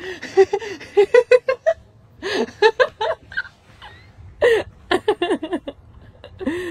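People laughing in several bouts of short bursts, with a quick run of them in the first two seconds.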